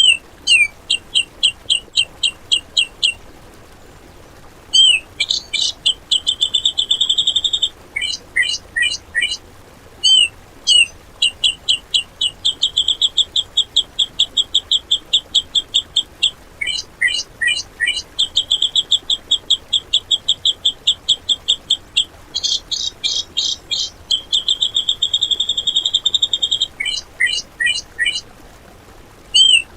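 Cucak jenggot (grey-cheeked bulbul) singing harsh, rapid 'tembakan' bursts: fast runs of sharp repeated high notes and trills, each phrase opening with a short rising note and recurring every five or six seconds as a looped training recording.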